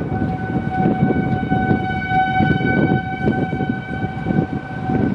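Outdoor tornado warning siren holding one steady tone that swells a little in the middle, heard over strong wind buffeting the microphone.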